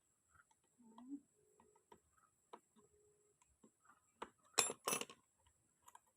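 Small metal clicks and clinks of tools and engine parts being handled, with two louder clanks in quick succession about four and a half seconds in.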